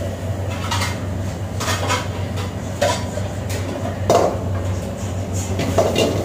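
Steel wok being worked over a gas wok burner: several metal clinks and scrapes of wok and ladle, the loudest about four seconds in as the wok is tossed, over a steady low hum.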